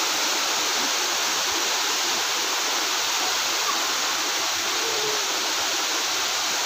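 Water cascading over a stepped stone weir at a lake's outlet: a steady, unbroken rush of falling water.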